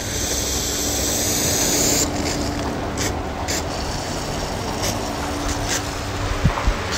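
Water hissing and spattering from a rain gun sprinkler running at low pressure, with a steady hum underneath. The rain gun is not working properly because the pressure relief bypass is fully open. The hiss is strongest in the first two seconds, and there is a short low thump near the end.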